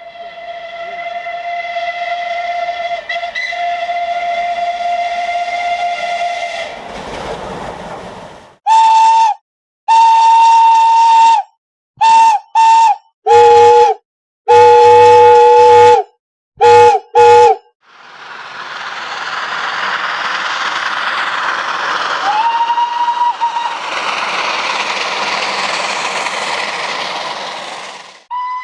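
Steam locomotive whistles, in several separate recordings. First comes one long steady whistle of about seven seconds that trails off into a rush of steam. Then about eight short, sharp, higher blasts follow, some sounding two notes at once, and last a long, breathy steam hiss out of which a clear whistle note rises about two-thirds of the way through and holds.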